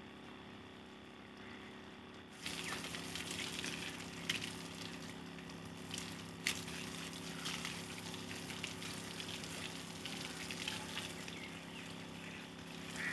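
Water spraying from a garden hose onto a bare brick wall, starting suddenly about two seconds in and then running as a steady hiss and splatter. The bricks are being wetted ahead of plastering.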